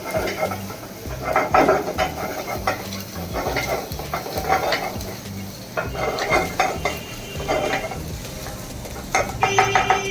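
Metal spatula stirring and scraping in a kadai in a series of short clattering strokes, with food sizzling as it is stir-fried over high heat.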